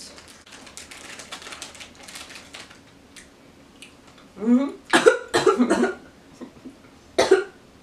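Plastic snack wrapper crinkling as a packet of candy is opened, then, about four and a half seconds in, a short fit of coughing with one more cough near the end: a reaction to very sour, fizzy strawberry candy straws.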